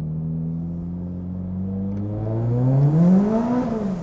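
Turbocharged Scion FR-S flat-four engine running steadily, then revved up about halfway through and dropping back near the end.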